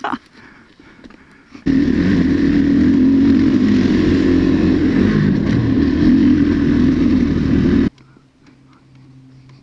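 Dirt bike engine running steadily while riding along a trail, with a rushing wind noise, heard from the moving bike. It starts abruptly about two seconds in and cuts off suddenly near eight seconds, leaving only a faint low hum.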